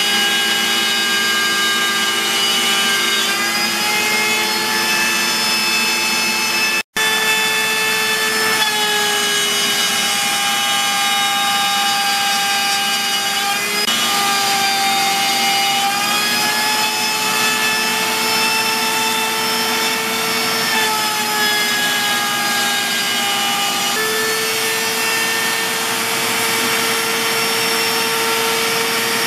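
CNC router spindle cutting slots in walnut, with a shop vacuum drawing through the dust shoe. Its steady whine steps up and down in pitch several times as the cut goes on, and the sound drops out for an instant about seven seconds in.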